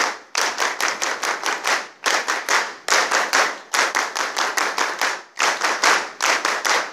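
An audience clapping together in unison, counted in, in quick, even, rhythmic sets with brief pauses between them.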